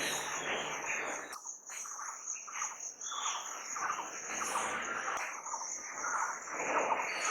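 Crickets trilling steadily at a high pitch, with irregular, louder noisy sounds in the lower range coming and going over them.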